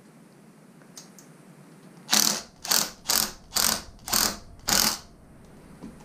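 Six short ratcheting rasps in a row, about two a second, from hand work at a bicycle's bottom bracket while a pedal-assist sensor and crank arm are fitted.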